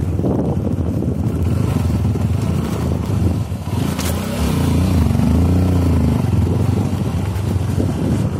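Trail motorcycle engine running while riding over sand, the revs rising and falling a few times in the middle, with a sharp clack about four seconds in.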